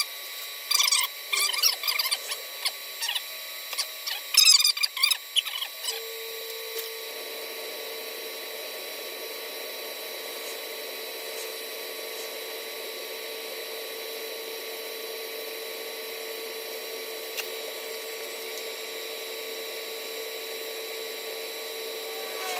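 TIG welding arc from a Harbor Freight Titanium Stick 225 stick welder run as a TIG machine, laying a root pass on heavy-wall pipe. Sharp crackling sputters come in bursts over the first few seconds while the arc is struck. From about six seconds in, the arc burns with a steady hiss and an even hum.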